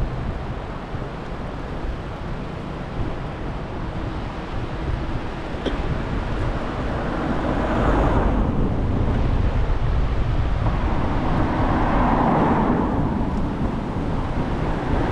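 Road traffic passing on the road beside the path: vehicle noise swells and fades about halfway through and again a few seconds later, over a steady low rumble.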